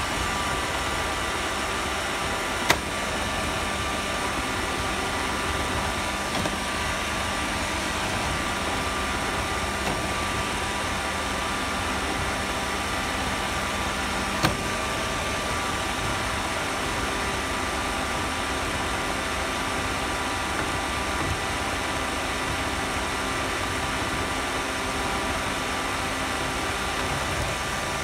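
Roomba robot vacuum running, heard up close from on top of the robot: a steady whir of its motors and brushes with a few thin high whining tones over it. Two sharp knocks stand out, one about three seconds in and another about halfway through.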